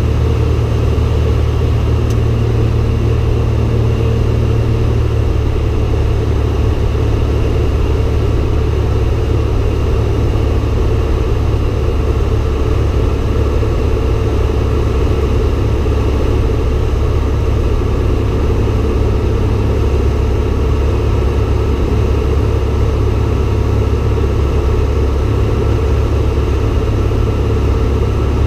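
Single-engine light airplane's piston engine and propeller droning steadily in flight, loud and unchanging.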